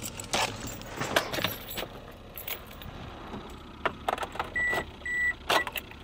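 Keys jangling and rattling with handling knocks. About four and a half seconds in come two short high electronic beeps and a clipped third, a Toyota Corolla's dashboard warning chime.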